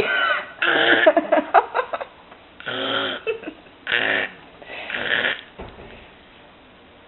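A person burping loudly several times in a row: about five separate burps, each a second or less, with short pauses between.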